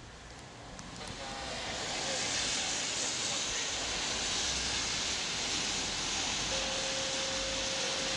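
Heavy rain during a thunderstorm: a steady rushing hiss that swells in over the first two seconds, then holds. A steady tone joins in near the end.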